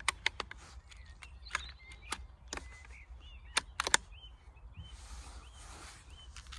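Sharp clicks and knocks from handling a Theoben Rapid air rifle: a quick run at the start, a few single clicks, then a louder cluster of three just before the middle. A small bird chirps repeatedly in the background, and there is a brief rustle near the end.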